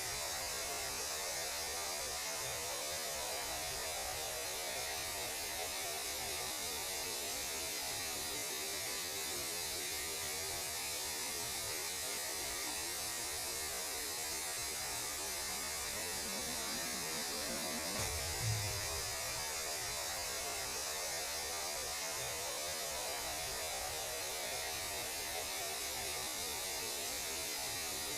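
Steady static-like hiss with a low hum underneath: radio and thermal emission from space rendered as sound. A brief low thump comes about eighteen seconds in.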